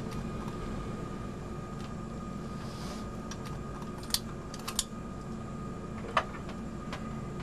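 Airbus A320 cockpit ambience: a steady hum with a faint high steady tone, broken by a few short sharp clicks around the middle.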